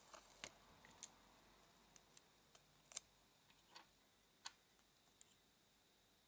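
Small plastic toy miniature pieces clicking and tapping against each other and the tabletop as they are handled: about a dozen light, sharp clicks scattered irregularly, the loudest about three seconds in.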